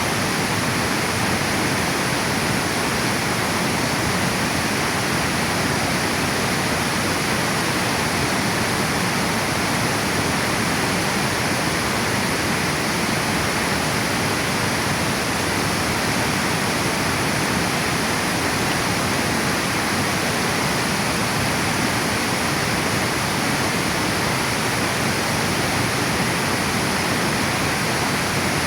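Water pouring over a river dam: a steady, even rush of falling water.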